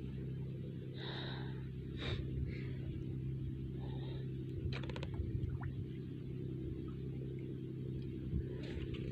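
Steady low drone of a large fishing boat's engine passing by, with a few faint knocks and rustles.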